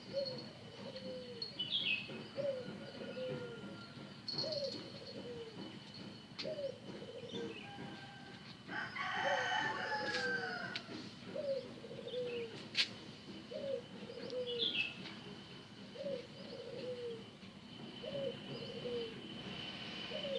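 A rooster crows once, about nine seconds in, a long call falling in pitch. Under it, a bird coos in short falling notes that repeat about once a second, over a steady high-pitched insect drone.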